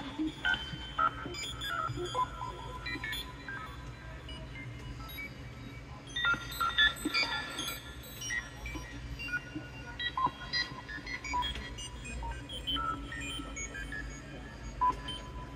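Roland AIRA S-1 synthesizer making computer-style bleeps: short tones that jump to random pitches, set by a random-waveform LFO, over a steady low hum.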